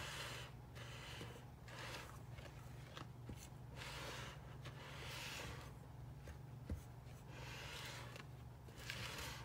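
Silicone spatula stirring dry flour, sugar and cinnamon in a glass mixing bowl: soft, gritty scraping swishes, about one stroke a second.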